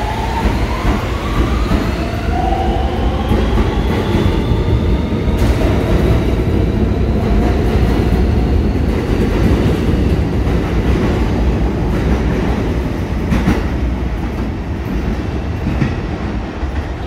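R160B subway train with Siemens propulsion pulling out of the station. The traction motors' whine climbs in pitch over the first few seconds as the train accelerates. The cars then rumble past with a few sharp clicks from the wheels on the rail joints, and the sound drops a little near the end.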